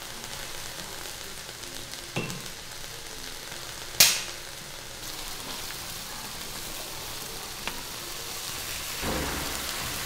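Crawfish sizzling in a hot wok. About four seconds in, a beer can's pull-tab is popped with a sharp crack and a short fizz; near the end, beer poured onto the crawfish makes the wok hiss louder.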